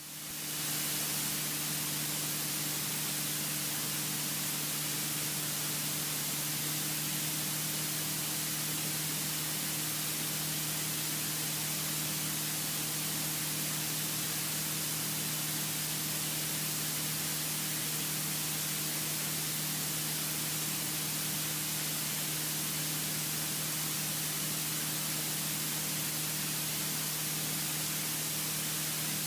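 Steady cabin noise of a single-engine light aircraft in level cruise: an even hiss with a constant low hum from the engine and propeller.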